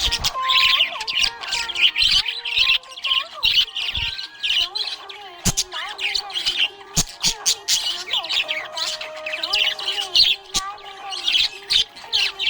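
Budgerigar chirping and warbling in a rapid, continuous chatter, with a few sharp clicks mixed in.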